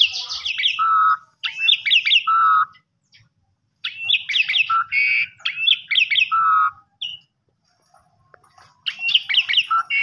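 Caged Javan pied starling (jalak suren) singing in the style its keepers call 'kopi-kopiko': short repeated phrases of quick high chattering notes, most ending in a lower held whistle. The phrases come in bursts with brief pauses, and a longer pause falls shortly before the end.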